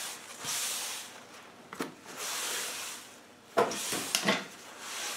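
Cloth rag wiping oil off a steel workbench top in repeated rubbing strokes. A sharp click comes about two seconds in, and a few light knocks near the end.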